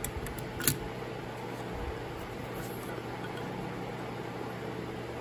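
Steady low hum of workshop background noise, with a single light click a little under a second in as a friction clutch plate is set into the transmission's clutch drum.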